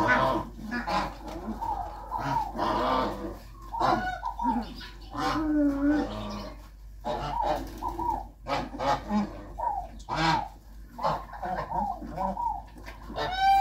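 A German Shepherd puppy, about two weeks old, whining and crying in a string of short, high, rising-and-falling calls while it is dosed with liquid dewormer from a syringe, protesting the medicine's unfamiliar bitter taste.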